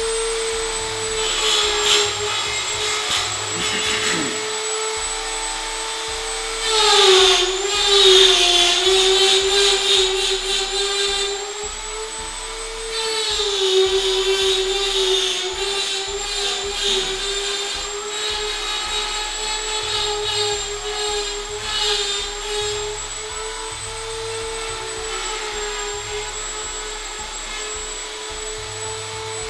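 Handheld rotary tool running steadily with a high whine, its burr grinding into antler. The pitch sags and the grinding gets louder when the burr is pressed in harder, about a quarter of the way through and again around the middle.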